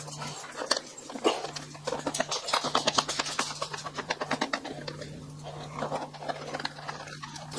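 Small screwdriver turning screws into the fan access panel of a foam model jet, giving a run of quick small clicks and scrapes from about two seconds in.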